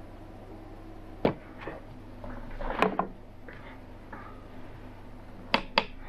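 Scattered sharp clicks and light knocks of a pocket knife and a metal rope fixture being handled at a digital scale on a wooden table, ending with two quick clicks as the knife is laid down on a plywood board. A faint steady hum lies underneath.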